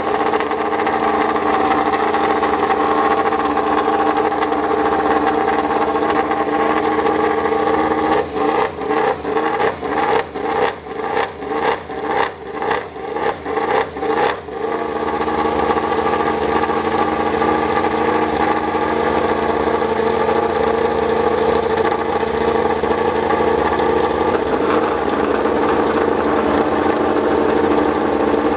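Yamaha YZR-M1 MotoGP bike's crossplane inline-four engine warming up on a rear stand, running steadily at a held idle. About a third of the way in, it is blipped rapidly, about a dozen quick revs at roughly two a second, then settles back to the steady warm-up run.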